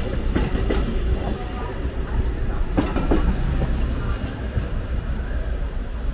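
Glacier Express passenger train rolling past and away on street track, with a steady low rumble. Its wheels clack over rail joints in two pairs, about half a second in and about three seconds in.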